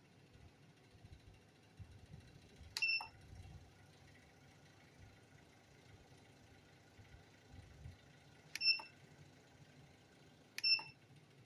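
Three short electronic beeps from the Dahao control panel of a computerised embroidery machine. The first comes about three seconds in and the other two near the end, about two seconds apart.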